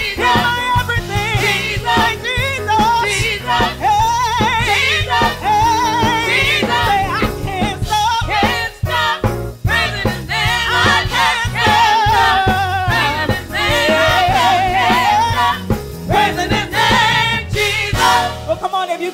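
Gospel praise singing with vibrato over instrumental accompaniment and a steady bass line; the bass drops out briefly just before the end.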